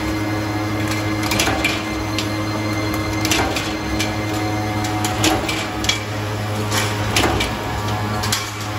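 Furring hat channel roll forming machine running with a steady motor hum, steel strip feeding through its rollers, broken by sharp metallic clacks at uneven intervals, about one a second.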